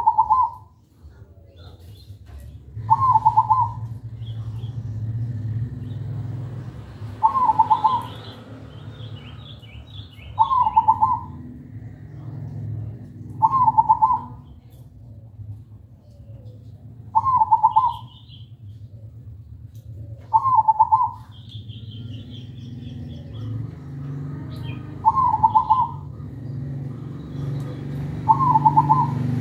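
A caged zebra dove (perkutut) singing its cooing song: a short, rapid, trilled coo phrase repeated nine times, about every three to four seconds. Faint chirps of small birds come between the phrases.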